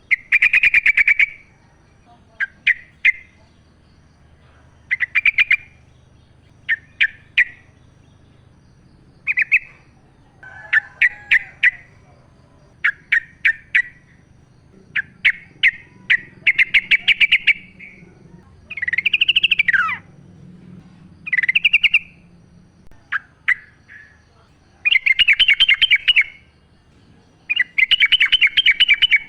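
Yellow-vented bulbul (trucukan) singing: short, bubbly phrases of rapid notes repeated every second or two, with one longer rising-then-falling note a little past two-thirds through.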